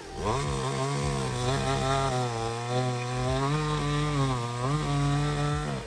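A petrol chainsaw runs at high revs while cutting branches of a fallen mango tree. It revs up about a third of a second in, and its pitch sags and recovers several times as it works through the wood, then it cuts off near the end.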